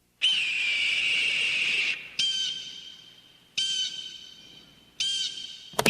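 Eagle call sound effect: one long, high, shrill scream falling slightly in pitch, then three shorter high calls about a second and a half apart, each opening with a quick upward flick before fading. A brief click comes just before the end.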